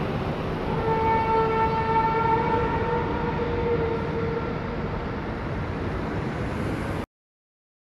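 A long, horn-like blare of the kind reported as mysterious 'sky trumpets', a single held tone with overtones lasting about four seconds over a steady rumbling background. The audio then cuts off abruptly about seven seconds in.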